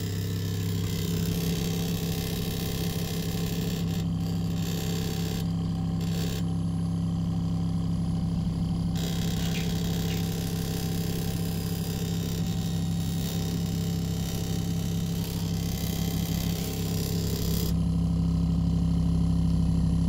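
Small 12 V refrigerator compressor and its cooling fan switching on and running with a steady low hum and buzz, the noise and vibration that the owner is trying to trace. The hum grows slightly louder near the end.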